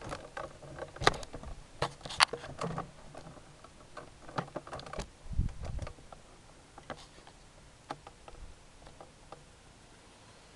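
Irregular clicks and knocks of hands handling a camera, crowded together in the first five seconds and sparser after, with a dull low thump about five and a half seconds in.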